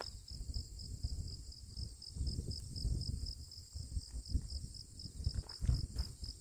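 An insect chirping steadily, a train of short high pulses at about three a second, over an uneven low rumble on the microphone.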